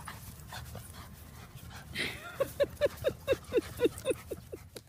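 A dog panting quickly, a run of short pitched huffs about five a second that starts about halfway through.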